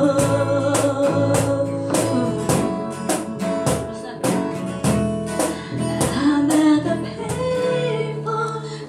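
Acoustic guitar strummed in a steady rhythm, about three strokes a second, with a voice holding wordless sung notes over it.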